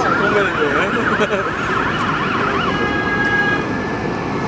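Emergency-vehicle siren on an airport rescue vehicle, sounding a fast yelp that about two-thirds of the way through changes to a steady, even tone.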